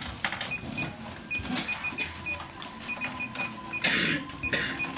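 Electronic keypad beeps at a shop till: a dozen or so short, high beeps at uneven intervals as keys are pressed. A brief rasping noise comes about four seconds in.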